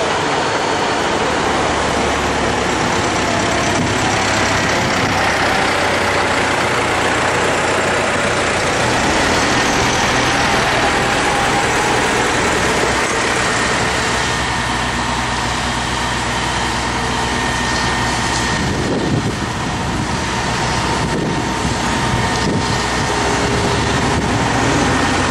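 Everdigm 43CX-5 truck-mounted boom concrete pump running, a steady engine note under a loud, even rushing noise.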